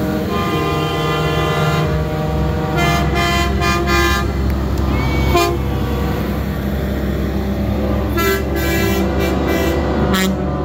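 Semi-truck air horns sounding over the low rumble of diesel engines as trucks pass. One long horn blast runs through the first half, and a second blast comes about eight seconds in.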